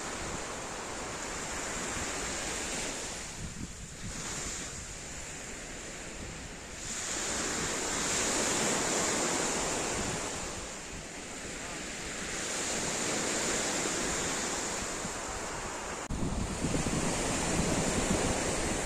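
Small sea waves breaking and washing up a pebble beach, the surf swelling and fading every few seconds. Wind buffets the microphone, more heavily in the last few seconds.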